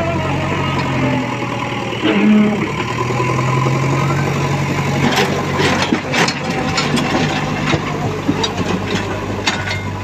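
Diesel engine of a JCB backhoe loader running steadily, with sharp clatters and crunches of stones and rubble from about halfway as the machine works over loose rock.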